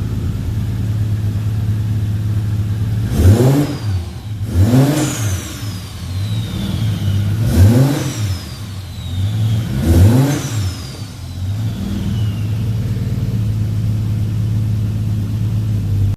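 Turbocharged Toyota 2JZ-GTE straight-six idling through a custom 3-inch cat-delete exhaust, blipped four times. After each rev a high whistle falls away as the turbo spools down. Then it settles back to a steady idle.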